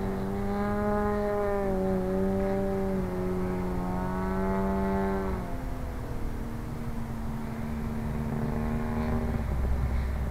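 Engine of a 40%-scale Sbach RC aerobatic airplane in flight, holding a steady droning note that drops in pitch about five seconds in and again near the end.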